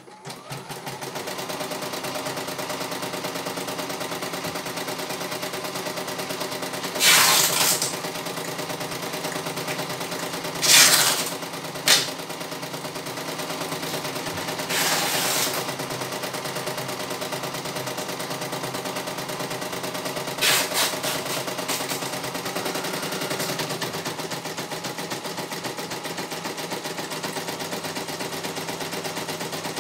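CNY E900 computerized embroidery machine starting up and stitching a design, its needle making a fast, even clatter. Several louder stretches of about a second each come partway through.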